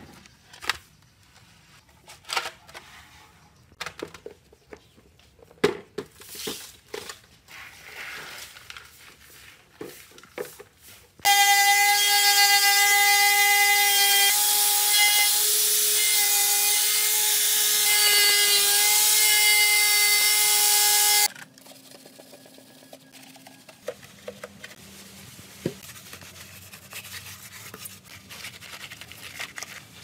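Handheld angle grinder running with a steady high whine, stripping rust from a steel refrigerator door. It starts abruptly about eleven seconds in and cuts off about ten seconds later. Before and after come quieter scattered clicks, scraping and rubbing from hand work.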